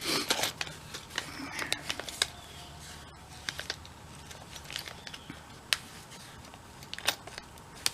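Small steel driver bits handled in the hand, giving scattered light clicks and clinks of metal on metal at irregular intervals.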